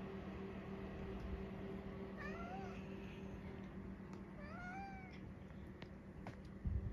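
Domestic cat giving two short meows about two seconds apart, each rising then falling in pitch, over a steady low hum. A thump near the end.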